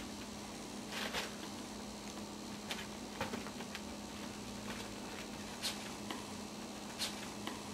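Small puppies scampering and wrestling on a floor sheet: scattered light pattering and crinkling of paws on the sheeting, a few sharp clicks standing out, over a steady low hum.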